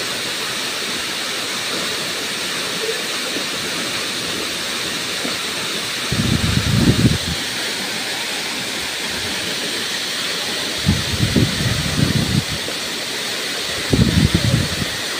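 Tall waterfall rushing steadily as it plunges into its plunge pool, a constant, even roar of falling water. Three brief low rumbles break in, the last near the end.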